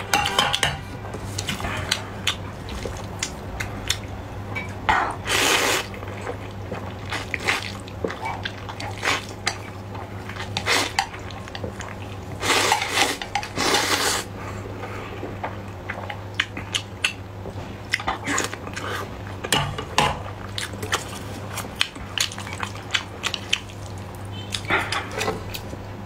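Close-miked eating of saucy instant fire noodles and boiled eggs: chopsticks clicking against ceramic plates, wet chewing and short sucking sounds, with two longer noodle slurps about five and thirteen seconds in. A low steady hum runs underneath.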